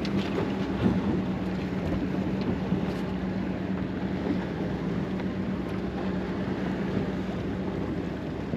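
Charter boat's engine running at idle with a steady low hum, with wind noise on the microphone and a few light knocks in the first second.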